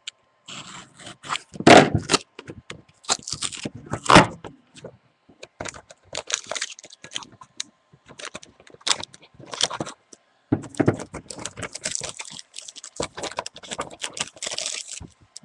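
A Panini Preferred trading-card box being opened and a card lifted out by hand: irregular scraping and rustling of cardboard and packaging, with scattered clicks and knocks.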